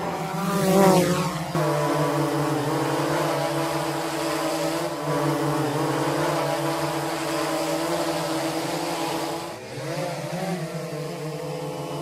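Quadcopter drone's motors and propellers humming at a steady pitch, with a brief swoosh and pitch bend about a second in and another short pitch wobble near the end.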